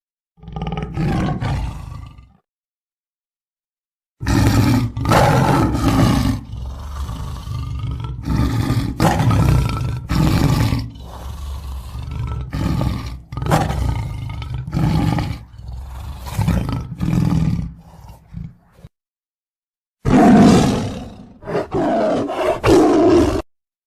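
Tiger roaring and growling: a short call, then a long string of rough roars, then a last burst. Dead-silent gaps separate the groups.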